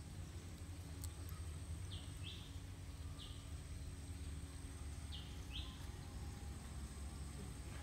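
A bird giving five short falling chirps, grouped two, one, two, over a steady low rumble and a faint steady high tone.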